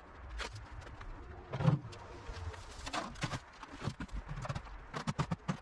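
Work boots stepping on a concrete path, with knocks and clatter from plastic garden pots being picked up and carried. One louder thump comes about a second and a half in, and a quick run of knocks near the end.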